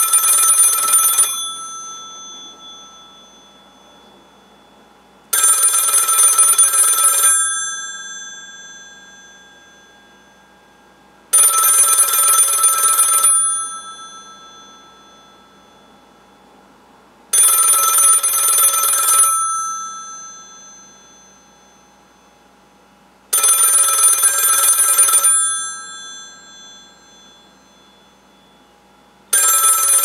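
Western Electric model 500 rotary desk telephone's mechanical bells ringing in bursts of about two seconds, repeating about every six seconds. Each ring dies away in the pause before the next.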